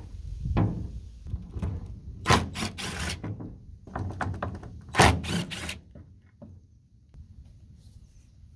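Cordless DeWalt driver spinning out mirror-bracket bolts in two short rattling bursts, about two seconds in and again about five seconds in, with a metal thump about half a second in.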